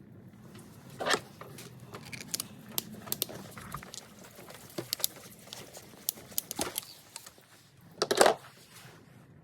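Irregular clicks, taps and light rattles of hand tools and parts being handled during a coolant crossover pipe job, with two louder clunks about a second in and near the end.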